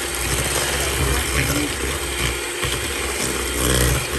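Electric hand mixer running steadily, its beaters churning thick cake batter in a stainless steel bowl.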